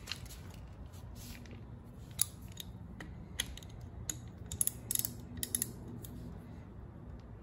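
Ratchet wrench clicking in short, irregular strokes, loosening the fill plug on a Ford 8.8 differential housing.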